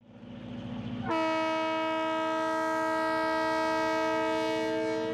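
Diesel locomotive of the Turkish Eastern Express: a low rumble of the running train, then about a second in the horn sounds one long, steady blast, several tones at once, held for about four seconds.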